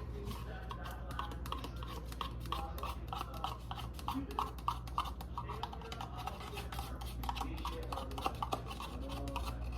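Rapid, irregular light clicking and scraping of utensils and containers being handled in a kitchen.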